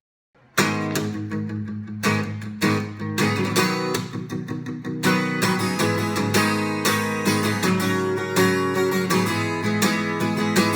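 Acoustic guitar strumming chords, starting about half a second in after a moment of silence; the instrumental introduction to a song.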